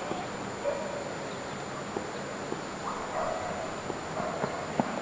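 Quiet open-air ambience at a cricket ground, with a few short, faint distant calls and a few light ticks.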